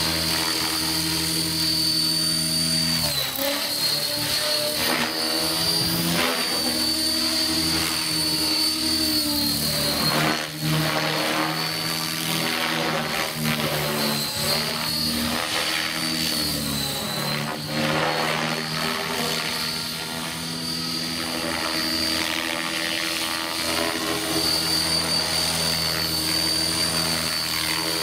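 Radio-controlled model helicopter running, a steady hum from the rotor and drive with a high whine above it. The pitch sags briefly a few times as it is flown.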